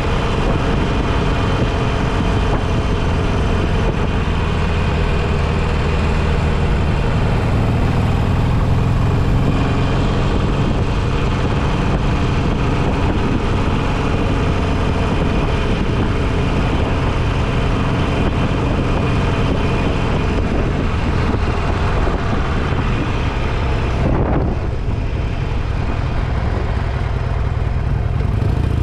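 Motorcycle engine running steadily, with no change in speed.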